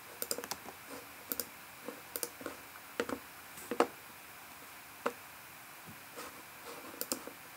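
Scattered sharp clicks from a computer mouse and keyboard, about a dozen, some in quick pairs.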